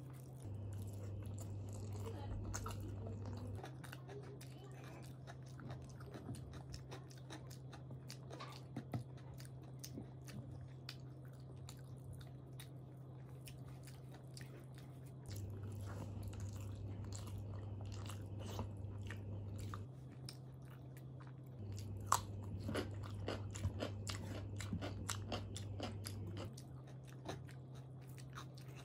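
Close-up chewing of rice mixed with dal and fried vegetables, eaten by hand, with many small mouth clicks and some crunching. A steady low hum runs underneath, changing pitch and loudness several times.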